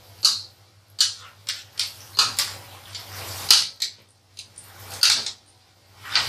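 Wire-mesh spider skimmer scraping and clinking against an aluminium frying pot and swishing through hot oil as doughnuts are scooped out: a series of short, irregular scrapes and splashes, with a low steady hum underneath.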